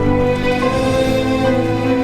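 Slow, sad instrumental music with long held notes.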